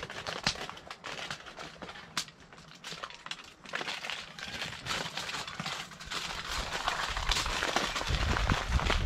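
Aluminium foil crinkling and crackling as it is handled, folded and crimped around fish fillets, in many short irregular crackles that grow busier in the second half. A low rumble comes in near the end.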